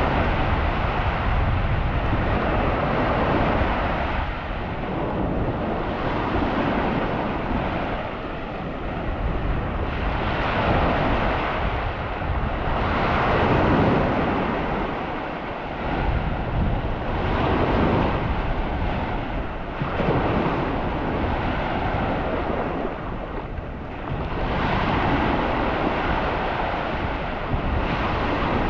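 Surf washing onto a sandy beach, swelling and fading every few seconds, with wind buffeting the microphone.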